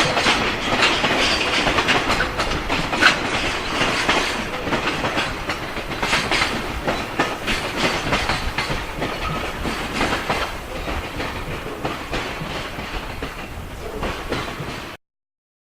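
A JR Freight freight train's wagons rolling past, the wheels clacking over rail joints in a steady stream of clicks over a loud rumble. The sound eases slightly, then cuts off abruptly near the end.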